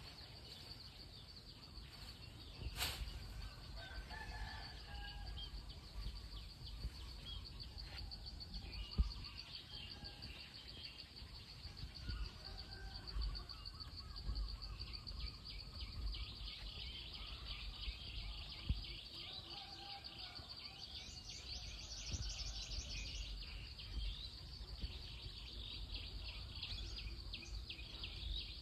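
Outdoor ambience: birds chirping and calling on and off over a steady high insect hum and a low rumble, with one sharp click about three seconds in.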